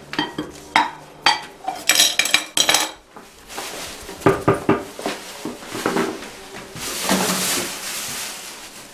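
Dishes and cutlery clattering and clinking as they are handled, with a run of sharp knocks over the first few seconds and a longer scraping rush near the end.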